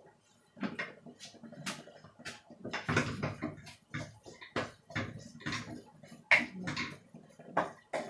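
Wooden spatula scraping and knocking against a frying pan as food is stirred, an irregular run of short scrapes and taps.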